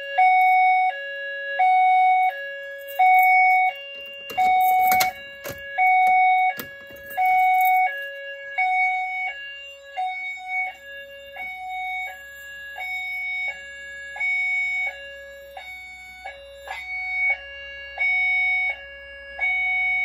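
Fire alarm sounder going into alarm after a manual pull station is pulled, sounding a hi-lo pattern: two steady tones alternating high and low, each held under a second. A burst of rustling handling noise comes about four to five seconds in, and the alarm grows a little fainter after about eight seconds.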